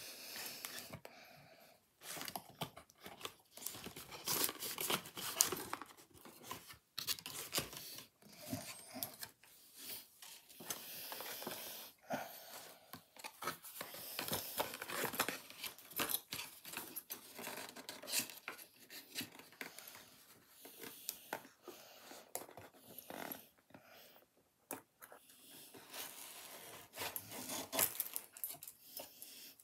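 Cardboard box and its packaging being handled and torn open: irregular rustling, tearing, crinkling and small knocks, with short pauses.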